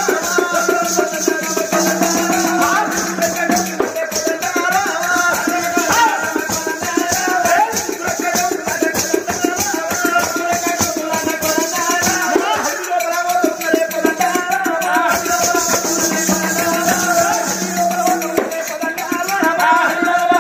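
Live oggu katha folk music: fast, steady drumming with a jingling rattle over it, a wavering melody line and a low held drone that drops out for a while in the middle.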